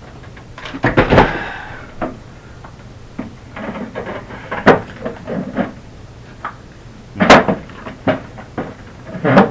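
A boxed roof vent fan and its parts being handled and unpacked: a scraping rustle about a second in, then a few separate knocks and clunks.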